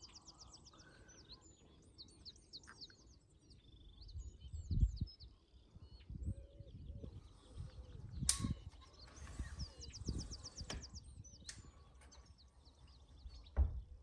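Small songbirds singing over a reedbed, with rapid series of high chirps and trills. Occasional low thumps and one sharp click about eight seconds in.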